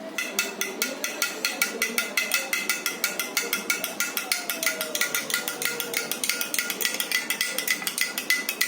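A spoon stirring briskly in a glass jar, clinking against its sides several times a second with a bright ringing tone, mixing honey into the herbal juice.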